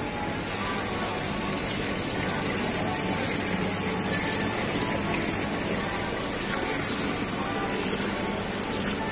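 Water bubbling and splashing in aerated live-fish tanks, a steady rushing noise, with faint voices behind it.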